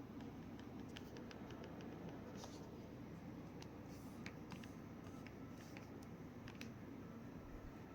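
Xiaomi RedmiBook laptop body creaking: faint, irregular small clicks and crackles from the plastic chassis.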